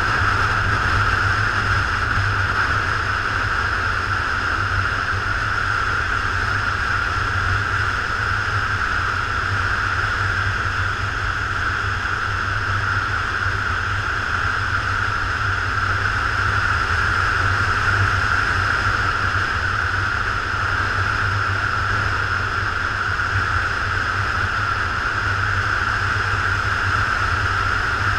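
Motorcycle cruising at a steady speed: a constant engine drone and the rush of wind over the mounted camera, with no change in pitch or level.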